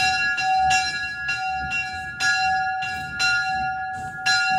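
Old church bell cast by J. Warner & Sons, rung by a rope and struck about once a second, each strike ringing on into the next with a clear F-sharp tone and higher overtones.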